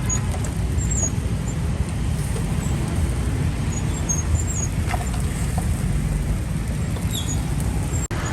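Steady low rumbling noise, with a few faint, short high chirps scattered through it.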